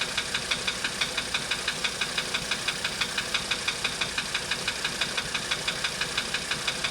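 1985 Mercedes-Benz 300D's five-cylinder diesel idling with a steady, rhythmic knock, about five a second, whose cause the owner has not found. The engine is running on diesel purge.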